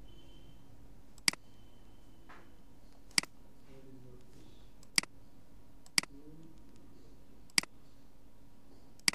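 Computer mouse clicking: six single sharp clicks, one every second or two, over a faint steady hum.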